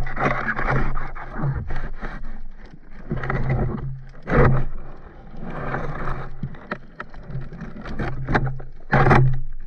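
Underwater scraping, rustling and knocking as a diver's gloved hand digs into a seabed of dead seagrass, with two heavier bumps about four and nine seconds in. A steady low hum runs underneath.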